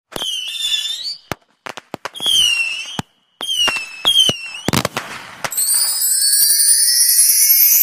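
Firework sound effects: about four short whistles that waver up and down, sharp pops between them, then a steady bright crackling shimmer from about five and a half seconds in.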